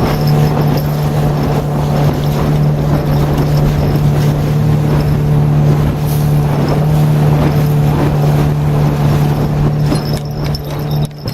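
Jet outboard motor of a Solar 450 Jet PVC inflatable boat running steadily under way, a constant hum at one pitch over a noise of water and wind. The level dips briefly near the end.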